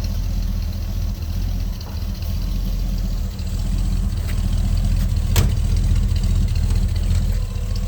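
1977 Ford Landau's V8 engine idling with a steady, even rumble. One sharp click about five and a half seconds in.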